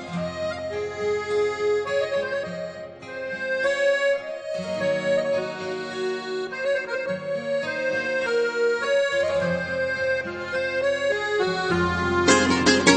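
Instrumental introduction of a Greek pop song: a held, sustained melody line over chords, with a fuller band and plucked strings coming in near the end.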